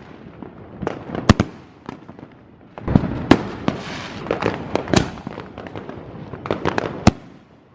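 Consumer fireworks going off: scattered sharp bangs and pops, with a rushing, crackling hiss building from about three seconds in, and a last sharp bang about seven seconds in.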